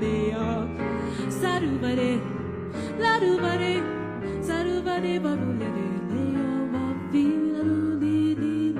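A jazz song: a woman's voice sings wordless scat lines that slide up and down in pitch over piano accompaniment.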